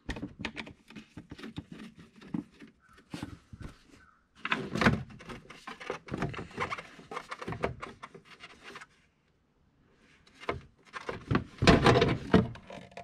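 Irregular plastic clicks, knocks and rattles of hands working at a truck's air intake, unplugging and pulling out the mass airflow sensor. The sounds come in busier clusters, with a short pause about two-thirds of the way through.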